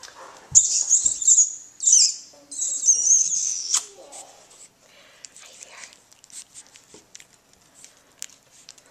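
Teddy bear puppies squealing and yipping in high, wavering squeaks as they play, followed by quieter rustling and small taps as a puppy is handled.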